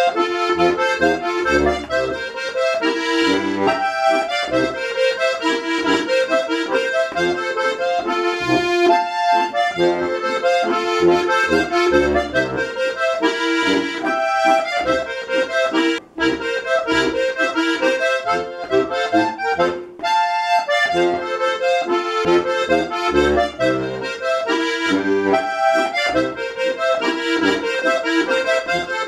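Diatonic button accordion (Steirische Harmonika) playing a waltz tune, treble melody over bass notes and chords. The sound breaks off for a moment about 16 seconds in and again about 20 seconds in.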